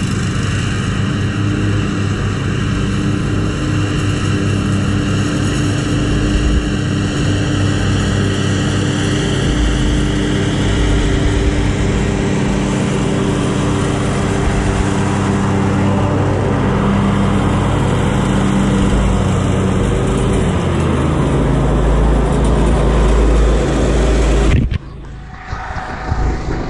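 Commercial lawn mower engine running steadily at an even speed, with several steady pitched tones. About 25 s in, the sound drops away suddenly for a second or two, then the engine comes back.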